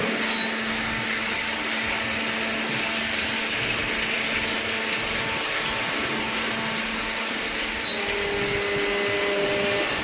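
Steady hum and whir of a running horizontal cardboard baler and its motors, with a constant low tone under a hissing whir that grows a little louder near the end.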